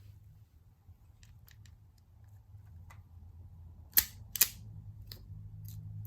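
A few faint clicks, then two sharp, loud clicks about half a second apart around four seconds in, over a low steady hum.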